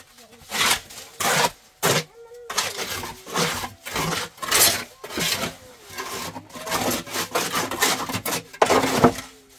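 Repeated rough scraping or rubbing strokes, irregular, about one or two a second.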